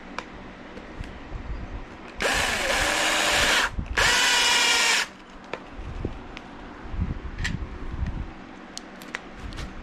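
Cordless drill driving long deck screws into plywood, in two runs of about a second and a half and a second with a brief stop between. The motor's pitch sags and recovers under load during the first run.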